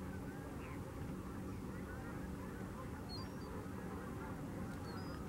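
A flock of water birds calling all at once in a steady overlapping chatter, over a low steady hum. A few brief high chirps stand out about three seconds in and again near the end.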